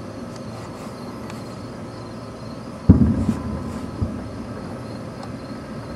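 Distant aerial firework shell bursting: one sudden loud boom about three seconds in that rolls away over a second, then a smaller thump a second later. Crickets chirp steadily in the background.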